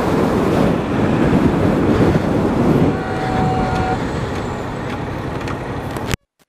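Motorcycle riding noise on a helmet-camera microphone: steady wind rush and engine-and-road noise, with a brief faint tone about three seconds in. It cuts off suddenly near the end.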